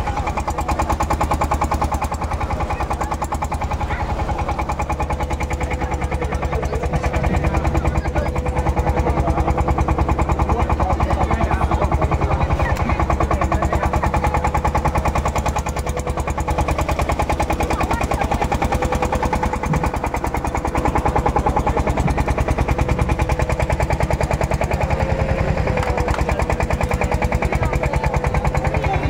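Fishing boat's engine idling: a fast, even chugging with a steady hum over it.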